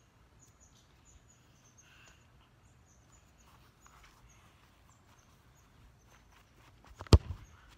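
Faint footsteps on grass, then a single sharp thump of a foot kicking a soccer ball, about seven seconds in.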